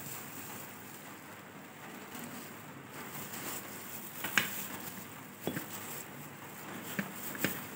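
A few short clicks and light knocks of a metal hand-held lemon squeezer being worked, opened and laid down on a ceramic plate. The first, a little past the middle, is the loudest, with about three more spread through the second half over a quiet room background.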